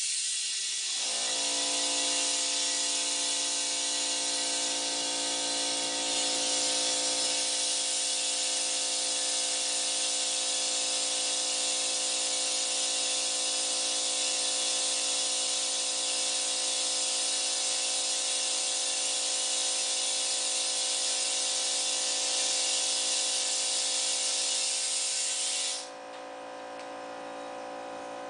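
Compressed air hissing steadily out of an air-line chuck into a lawn tractor tire while the loose bead is being seated. A steady motor hum from a small air compressor joins about a second in. Near the end the hiss falls off sharply.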